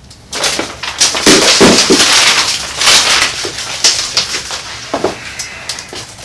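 Loud crinkling and crackling handling noise, a dense run of sharp crackles, for about four seconds before it thins out to a few fainter clicks.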